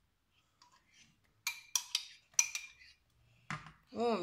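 Metal spoon clinking and scraping against a glass cup while scooping sour cream out of it: a few faint taps, then a quick run of about five sharp clinks from about a second and a half in.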